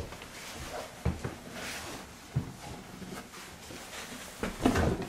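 Scattered knocks and bumps with rustling, from people climbing up through a wooden ceiling hatch into an attic; the loudest bumps come near the end.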